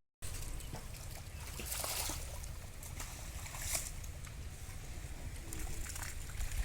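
Pond water splashing and sloshing, with two louder splashes about two seconds and nearly four seconds in, over a steady low rumble.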